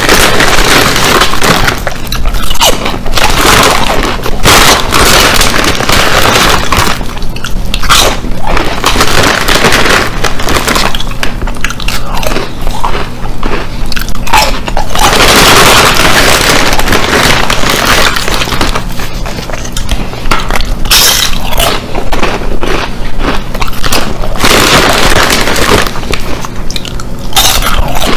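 A man crunching and chewing ridged potato chips close to the microphone, loud and almost without a break, one mouthful after another.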